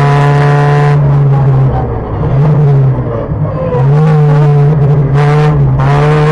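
Opel Astra's engine running at high revs under hard driving. It eases off with the pitch dropping about two seconds in, pulls strongly again near the four-second mark, and briefly dips once more near the end, as with lifting and a gear change.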